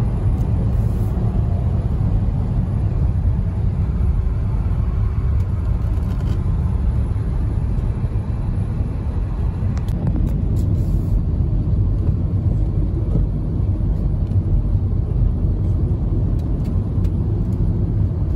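Steady low rumble of engine and road noise inside the cabin of a 2001 Audi A4 2.8 Quattro with a V6 engine, creeping in stop-and-go traffic.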